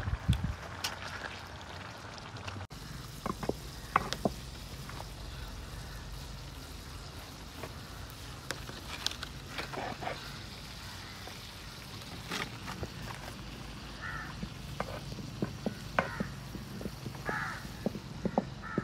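Cooking over a wood fire: a metal spatula scraping in a frying pan, then scattered clicks and taps of utensils against a cooking pot.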